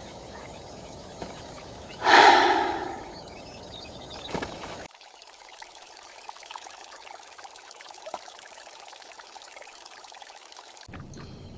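Steady rain ambience with light drips and ticks. About two seconds in comes a loud, breathy sigh lasting about a second.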